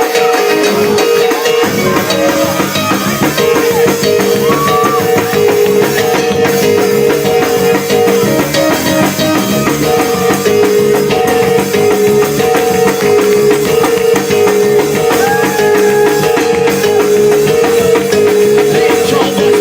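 Live church praise music from a band with drum kit and guitar, playing a steady upbeat groove for praise dancing.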